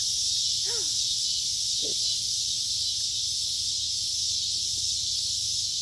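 Steady high-pitched hiss with a low hum beneath it, and two short faint voice sounds about one and two seconds in.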